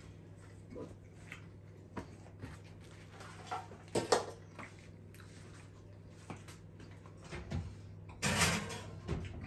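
Handling noises in a kitchen over a steady low hum: scattered light knocks and clicks, a sharp clatter about four seconds in as a grill plate is lifted, and a rustling scrape near the end.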